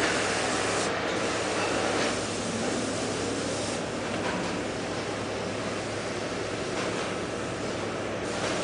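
Steady din of a car-seat moulding line: machinery running with a constant hiss.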